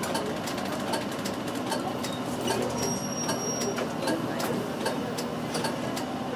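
A city bus's turn-signal relay ticking steadily, a few ticks a second, over the low hum of the bus's engine as it turns at low speed.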